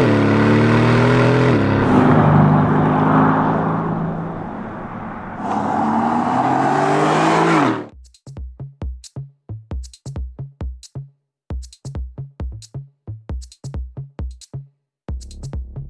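Aston Martin DB11's 4.0-litre twin-turbocharged V8 accelerating hard with a rising pitch. It drops as it shifts up about a second and a half in, eases off, then pulls hard again. About eight seconds in it cuts off and electronic music with a steady drum-machine beat takes over.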